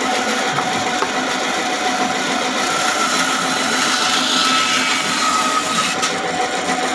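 Bandsaw running steadily, its narrow blade cutting through blocks of wood, with a faint motor hum under the sawing noise.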